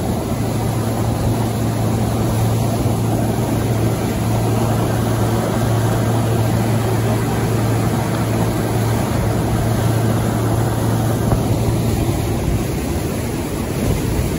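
Alaska 500 fishing boat's engine running hard at speed, a steady low drone, with rushing water and wind noise over it.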